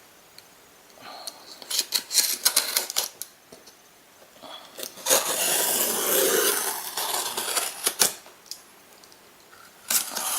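The seal on a cardboard camera box being broken and torn open. It starts with a quick run of crackling clicks, then a longer tearing, rubbing stretch about five seconds in, with a few more clicks near the end.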